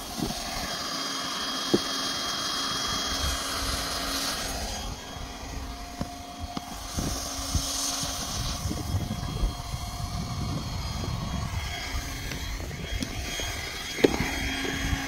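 Hand-held hot-air welding gun blowing steadily with a thin high tone as it heat-welds a patch onto geomembrane pond liner, its hiss stronger in the first few seconds and again around eight seconds in. A few sharp knocks, the loudest near the end.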